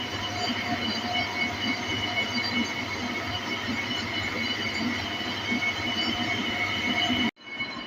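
Workshop machine running steadily with a squealing whine made of several fixed high tones. It cuts off abruptly near the end, and a quieter sound follows.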